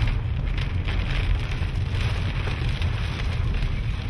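Rain falling on a moving car during a severe thunderstorm, heard from inside the cabin over a steady low rumble of wind and road.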